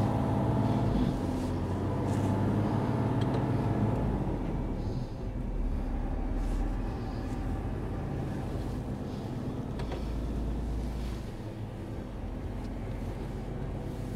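Mercedes-Benz 40-tonne articulated truck reversing at speed in its fastest reverse gear, a steady engine and drivetrain drone. A pitched hum is strongest in the first few seconds, then it settles into a more even rumble.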